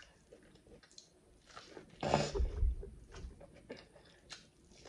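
Close-up mouth sounds of biting and chewing corn on the cob: many small wet clicks and crunches of kernels. About two seconds in there is a louder, deeper patch of sound.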